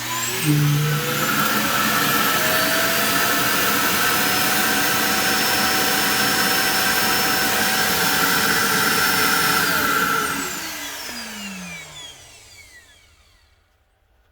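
Roomba i3+ Clean Base auto-empty station evacuating the robot's bin. Its suction motor spins up with a rising whine and runs steadily for about ten seconds. Then it winds down, falling in pitch, and fades out.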